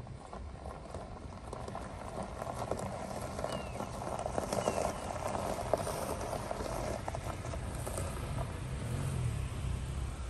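A Mazda SUV creeping over dirt and gravel, its tyres crunching and popping on loose stones over a low, steady rumble. The crunching swells in the middle, about four to seven seconds in.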